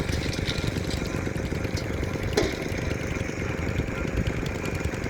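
Steady low rumble of a vehicle engine running, with one short sharp sound about two seconds in.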